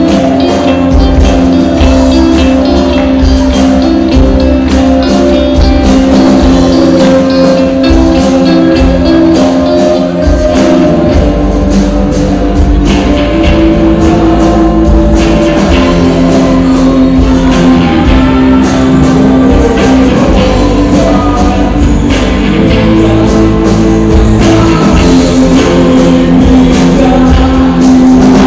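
Loud live band music: a drum kit keeping a steady beat under keyboard and held instrumental notes, with a man and a woman singing into microphones.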